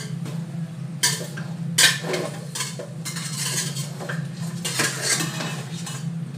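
Metal ladle stirring in a stainless steel stockpot, scraping and clanking against the pot at irregular moments, the loudest clank about two seconds in. A steady low hum runs underneath.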